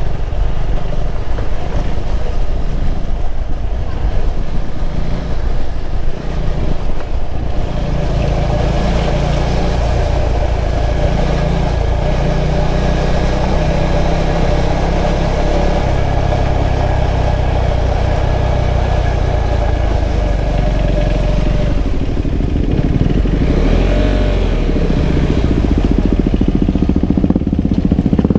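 KTM 390 Adventure's single-cylinder engine running steadily while riding a rough dirt road, under a low rumble of wind on the microphone. The engine note changes about three-quarters of the way through.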